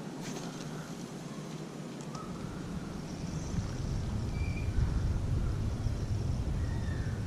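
Wind rumbling on the microphone, growing stronger about halfway through, with a few faint short bird chirps and a couple of faint clicks near the start.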